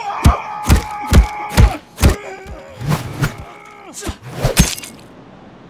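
Fight-scene punch and hit sound effects, about ten sharp impacts at roughly two a second, under a man's long held battle yell that rises at the start and then holds, followed by a second, lower held yell. The hits and yelling stop about a second before the end.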